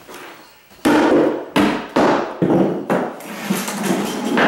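Hammer driving the nails of a wooden carpet tack strip into the subfloor: a run of about six sharp blows, starting about a second in.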